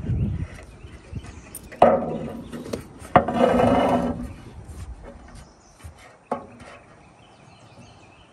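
Length of painted metal edge trim being handled on a plywood roof deck: it clatters and rattles as it is picked up and laid down twice, scraping across the wood. A couple of sharp snips from tin snips follow about six seconds in.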